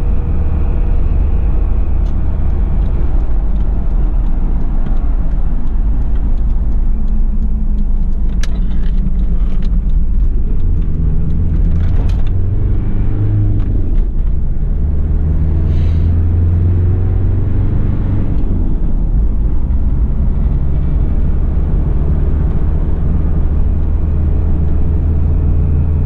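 Toyota Land Cruiser Prado LJ78 on the move, heard from inside the cabin: the four-cylinder turbo diesel drones steadily under road noise. The engine note swells twice in the middle, then settles.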